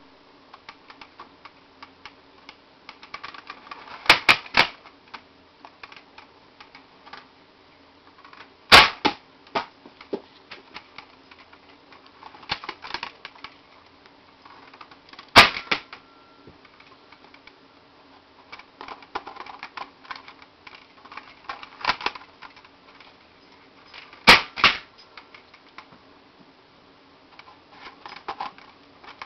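Plastic clicking and rattling of a 1996 Nerf Defender T3 foam-dart blaster being handled and loaded, broken by about five sharp, loud snaps from the blaster's mechanism.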